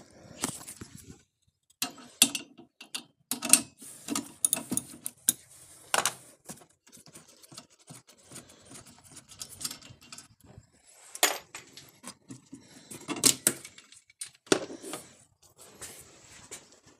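Irregular clicks, knocks and clatter of a socket wrench and hands working at the wiper-arm nuts and the plastic windshield cowl. The sharpest knocks come about 2, 3.5, 6, 11, 13 and 14.5 seconds in.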